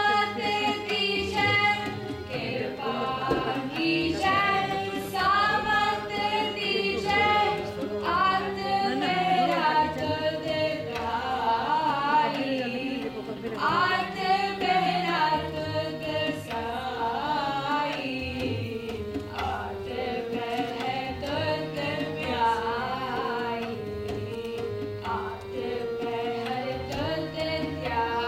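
Sikh kirtan: a female voice singing a shabad over a steady harmonium drone and melody, with tabla keeping the rhythm.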